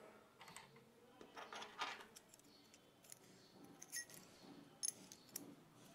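Faint handling sounds of a Stanley hand rivet gun and small metal plates. There are soft rustles in the first two seconds, then several light, sharp metallic clicks and clinks.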